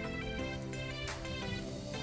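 Background music: instrumental with held chords and a steady beat.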